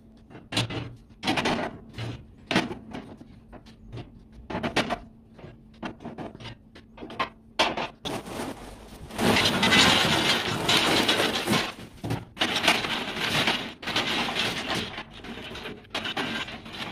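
Cast-iron grill grates knocking and clinking against each other and the stainless steel grill box as they are set in place. About nine seconds in, a dense, louder clatter of lava stones tumbling and scraping over the grates as they are laid into the grill.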